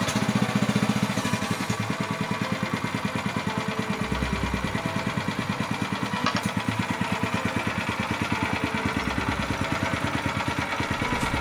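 Matsumoto 9 HP single-cylinder petrol engine running steadily with no load on a test run, a rapid, even beat.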